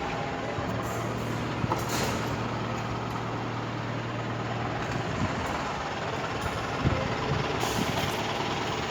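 A heavy engine running steadily amid construction-site noise, with a low hum for the first few seconds and scattered knocks and clatters.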